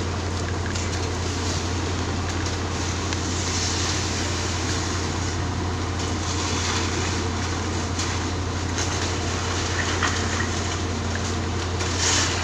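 Concrete mixer truck running steadily during a concrete pour: a continuous low engine drone under an even rushing hiss, which swells briefly near the end.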